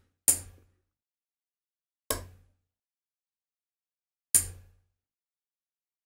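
Relay module clicking as a magnet trips the reed switch that drives it: three sharp clicks about two seconds apart.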